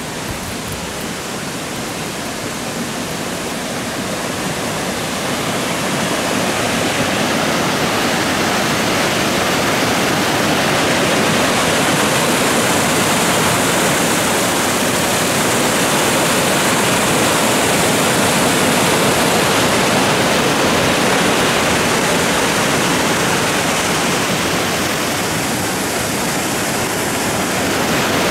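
Steady rush of falling water from the Manojlovački slapovi waterfalls. It grows louder over the first ten seconds, eases slightly near the end and swells again.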